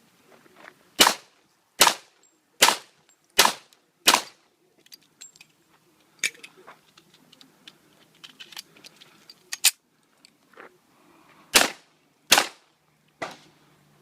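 Citadel 1911 .45 ACP pistol firing five shots about a second apart, then a pause of several seconds with small clicks of a magazine change, then a few more shots near the end.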